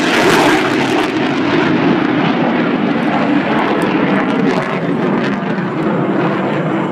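Fighter jet running loud overhead, a dense rushing engine noise whose highest hiss drops away about a second in.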